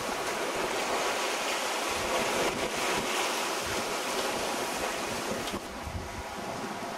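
Wind blowing across the microphone over the wash of choppy open sea, aboard a sailing yacht in squally weather. The noise eases slightly a little before the end.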